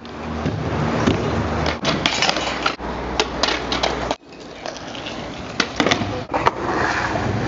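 Skateboard wheels rolling on concrete, with several sharp clacks of the board being popped and landing. The sound changes abruptly a couple of times between shots.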